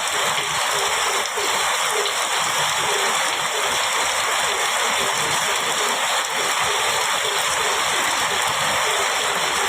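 Heavy rain pouring steadily on a metal roof, a dense even hiss.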